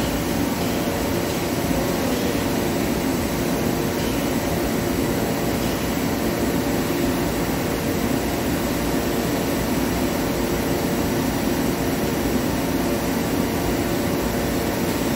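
Steady droning hum of running machinery in a machine shop, with several steady tones under it and no metal cutting.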